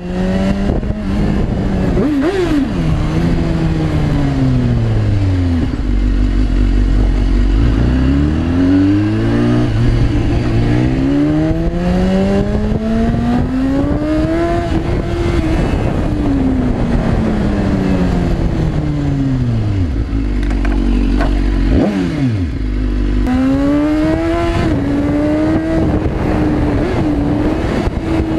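Sport motorcycle engine accelerating and easing off again and again, its pitch rising and falling, settling twice to a low idle, about a quarter and three quarters of the way through.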